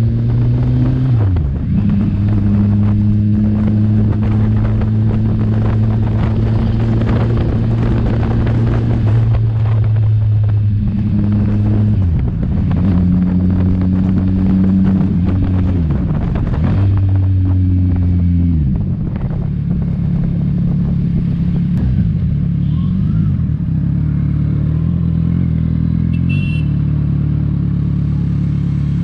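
Kawasaki Ninja 1000's inline-four engine running while riding, heard from the bike, with revs held steady for several seconds at a time. Its pitch drops sharply a few times as the throttle is rolled off, and from about two-thirds of the way through it runs at lower, less even revs.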